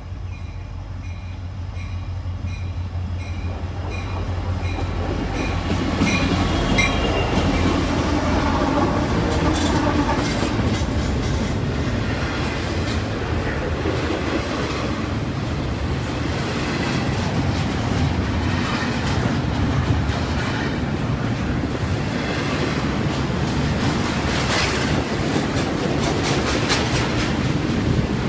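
A diesel-hauled double-stack intermodal freight train approaches and passes. The locomotive engines hum low and a bell rings about twice a second for the first several seconds. From about six seconds in, the container cars roll by with a loud steady rumble and clickety-clack of the wheels over the rail joints.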